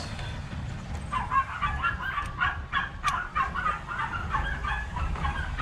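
Birds calling in a rapid, irregular chatter of short squawks, starting about a second in, over a low steady rumble.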